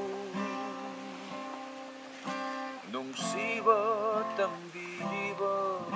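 A man singing a slow song over strummed acoustic guitar, holding sung notes with a wavering vibrato near the middle.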